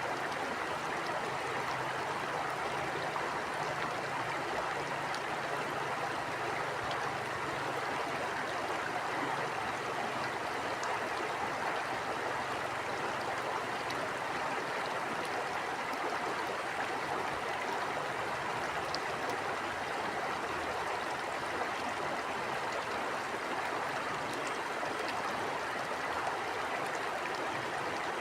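Stream water running steadily, a constant even rush of flowing water.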